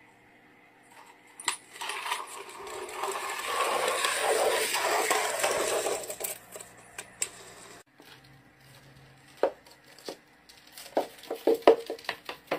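A small turtle moving about on a towel and a wooden floor. First comes a few seconds of scraping, rustling noise, then from about the middle onward a run of light clicks and taps of its claws and shell on the boards.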